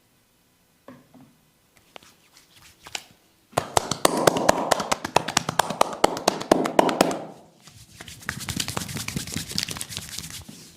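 Massage hands tapping and slapping rapidly on skin: a few scattered taps, then about three and a half seconds in a fast, loud run of strokes lasting some four seconds, and after a short pause a lighter, quicker run of taps.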